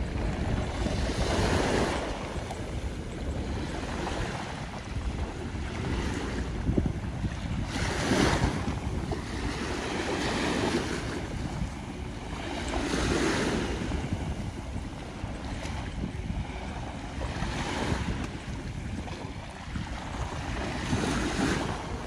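Small waves washing onto a sandy beach in soft surges every two to three seconds, with wind on the microphone.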